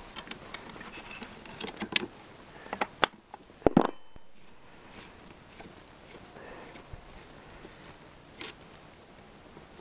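Small metal clicks and knocks of parts being handled while a washer and the starter ratchet are fitted on a chainsaw's starter hub. The loudest knock comes a little under four seconds in, followed by quieter fiddling and one more light click near the end.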